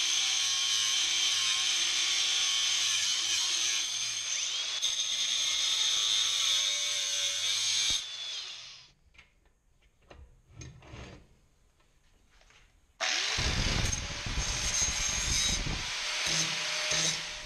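Angle grinder with a cutting wheel cutting through 1/8-inch flat steel bar held in a vise: a steady high whine and grinding hiss that winds down about eight seconds in. After a few quiet seconds with small clinks, a second angle grinder spins up with a rising whine and grinds the edge of the steel.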